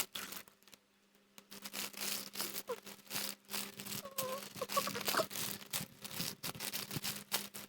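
Rapid, irregular scratching and rustling handling noise, like plastic being rubbed and crinkled, with a faint short voice-like glide about four seconds in.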